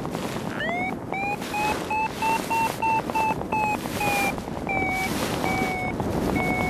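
Paragliding variometer beeping its climb tone: an upward sweep about half a second in, then quick beeps, about three a second, that climb in pitch, slowing later into longer, slightly lower beeps, the sign of the lift weakening. Steady wind noise from the airflow runs underneath.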